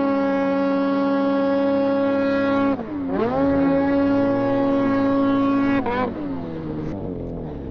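Ski-Doo Summit snowmobile's two-stroke engine held at steady high revs under throttle. Its pitch dips and climbs back about three seconds in, then falls away near the six-second mark as the throttle is let off.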